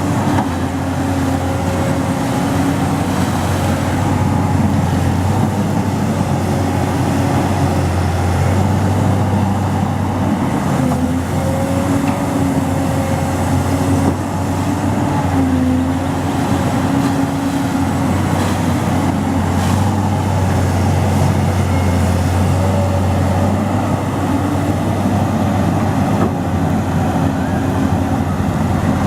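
Excavator's diesel engine running steadily with a deep, even drone, its pitch shifting slightly now and then as it works.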